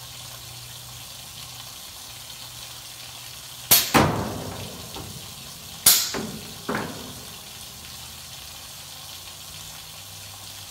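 Pneumatic solenoid valve on a CNC plasma table's gantry, switched by hand: four sharp clicks, each followed by a short fading hiss of air, in two pairs about two seconds apart. The air engages and releases the tension that holds the drive motor's gear against the rack.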